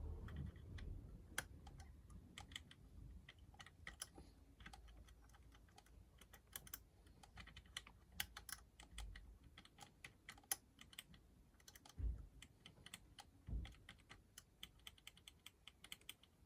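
Faint, irregular small metallic clicks and ticks of a lock pick working the levers inside a 5-lever mortice lock, with two soft low thumps about twelve and thirteen and a half seconds in.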